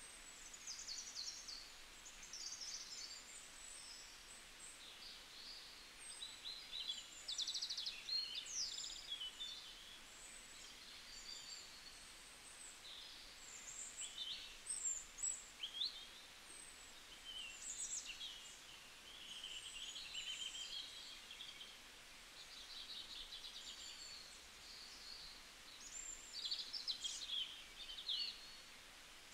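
Birdsong: several small birds chirping and trilling over one another, with quick rising whistles now and then, over a faint steady hiss.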